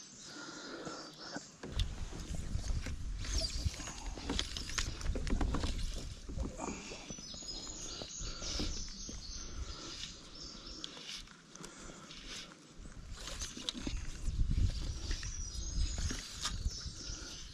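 Outdoor ambience of birds chirping in short repeated high calls, with a low rumble of wind on the microphone in stretches and occasional small knocks and rustles from handling the fly rod and line in the kayak.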